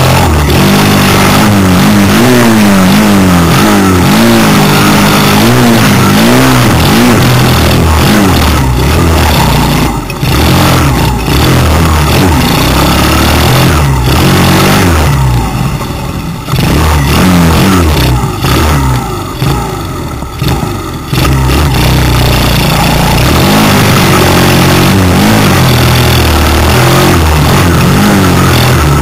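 Small off-road vehicle engine heard close up from onboard, revving up and down with the throttle as it rides, easing off several times in the middle before pulling again.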